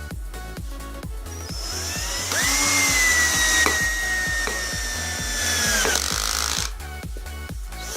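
14.4 V cordless drill motor, running on its new lithium-ion pack, whines up to speed about two seconds in, its pitch sagging slightly, and stops near the end. Background music with a steady beat plays throughout.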